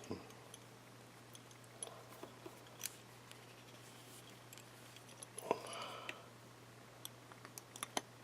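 Scattered small clicks and taps of a small object being handled, with a louder knock and a brief scrape about five and a half seconds in, over a steady low electrical hum.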